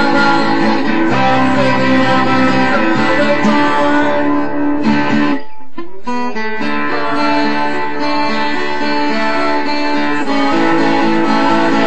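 Guitar playing an instrumental passage of ringing, sustained chords. The low notes drop out briefly about halfway through.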